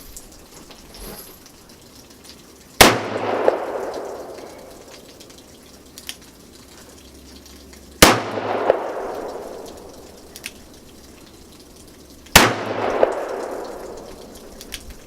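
Three single gunshots on a shooting range, each with a ringing echo that dies away over about a second, fired a few seconds apart.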